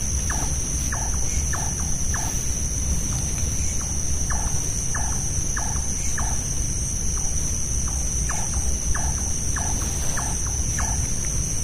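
Nighttime forest sounds. Short two-part animal calls repeat about twice a second in loose runs over a steady high-pitched insect drone, with a low rumble underneath.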